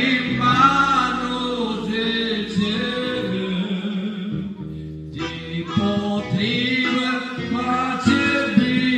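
A man singing a Pentecostal Christian hymn through a microphone and loudspeaker, accompanied by an electronic keyboard. The voice drops out for a moment about halfway through, then the singing resumes.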